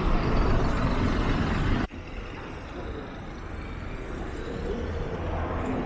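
Traffic noise on a city street, with buses and cars passing and a heavy low rumble. About two seconds in the sound drops off abruptly and carries on as quieter traffic noise.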